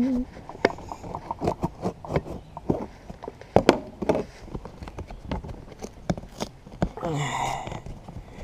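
Duct tape being picked at and peeled off a cardboard shipping box: irregular crackling, tearing and rustling, with a longer, louder rasp about seven seconds in.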